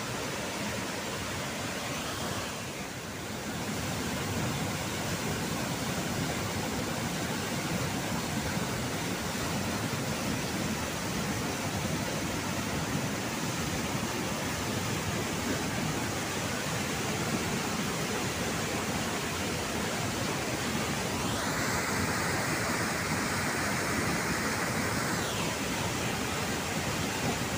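Water spilling over a concrete dam weir and crashing into the pool at its foot: a steady rush of white water. For a few seconds near the end the rush turns brighter and hissier.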